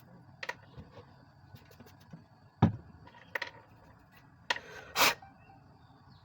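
Small clicks, taps and scrapes of a needle worked against a phone's speaker grille to clear dirt from its holes, with a sharp knock about two and a half seconds in and a longer scrape near the end.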